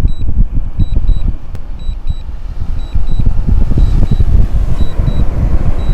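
Wind buffeting the microphone in heavy, uneven low gusts. Over it a drone remote controller gives short high double beeps about once a second, the DJI low-battery warning.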